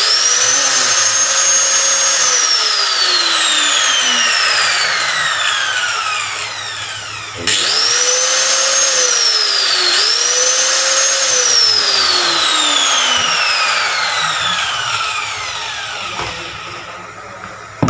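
Ryu hand angle grinder being test-run after repair of its faulty on/off switch: it spins up with a high whine, is switched off about 2 s in and winds down with a long falling whine, then is switched on again about 7.5 s in, dips briefly and runs up again, and is switched off once more to wind down. A short knock near the end.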